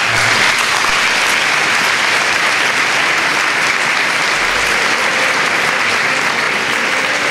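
Large audience applauding, the clapping steady and even throughout.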